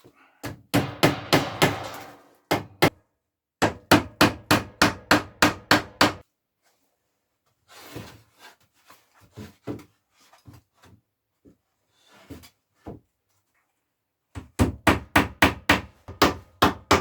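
Hammer driving nails into wooden boards: quick runs of sharp, evenly spaced blows, about four or five a second, with a few lighter, scattered taps in the middle.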